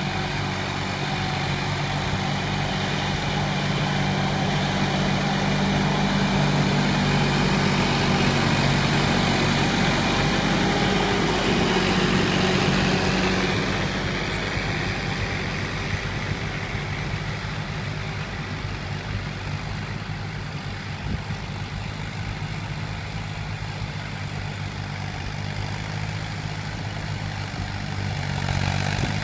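Diesel tractor engine running steadily under load while ploughing. It is louder for the first half, drops back about halfway through, and rises again near the end.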